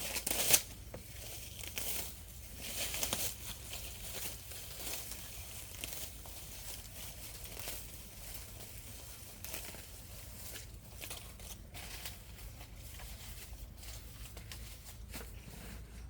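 Irregular rustling and crinkling, with a sharp crackle about half a second in.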